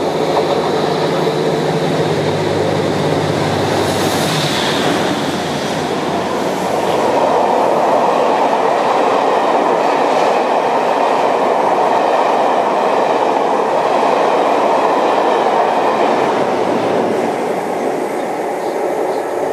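Diesel-hauled passenger train running through the station without stopping. The locomotive's engine note passes in the first few seconds. Then a long rake of coaches rushes by with wheel-on-rail clatter, fading near the end.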